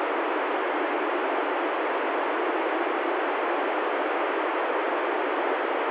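Loud, steady FM static hiss from an ICOM ID-51 handheld receiving the ISS voice downlink: the signal drops out mid-sentence and the receiver passes only noise. It cuts off suddenly at the very end as the astronaut's voice comes back through.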